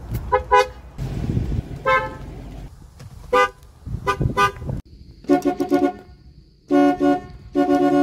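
Car horns from several different cars sounding one after another. Quick short toots come in the first half, then longer held honks in the second half, with a low rumble under the toots between about one and three seconds in.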